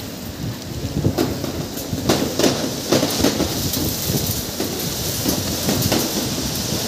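Strong dust-storm wind blowing over the microphone: a continuous loud rushing broken by irregular gusts that buffet the mic, several of them from about a second in.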